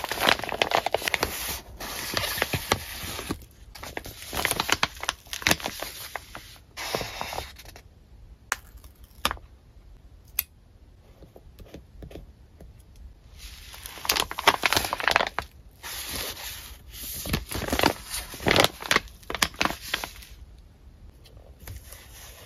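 Paper rustling and crinkling with sharp little crackles as crinkly kraft paper is handled and folded, in two long stretches with a quieter spell of a few light taps in between.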